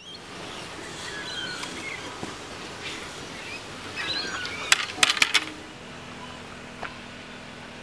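Two Siberian husky puppies play-fighting on grass. There is faint scuffling with a few short high chirps, and a quick run of sharp clicks about five seconds in.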